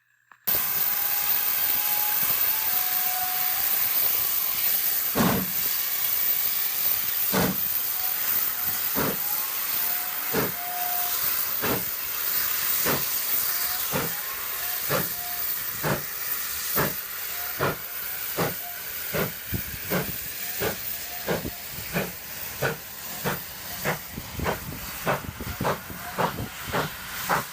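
Steam locomotive getting under way: a steady hiss of steam with exhaust chuffs that start about two seconds apart and quicken to about two a second.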